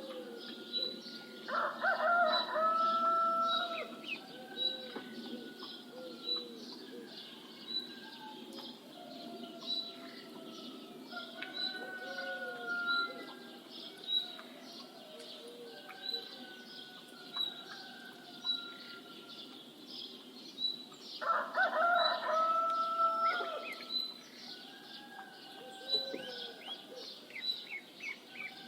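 A rooster crows twice, once about a second in and again about twenty seconds later, over a steady chorus of small birds in which one bird repeats a short high note about every second and a half.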